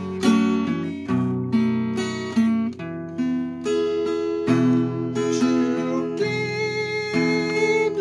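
Acoustic guitar with a capo played solo: chords picked and strummed in a steady run of ringing notes.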